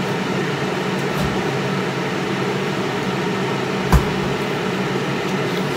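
Steady hum of a running kitchen appliance, with a single sharp knock about four seconds in.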